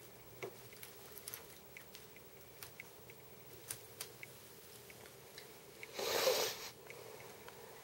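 Plastic K'nex pieces clicking and snapping as a K'nex robot is handled and put back together: scattered light clicks, with a brief louder rush of noise about six seconds in.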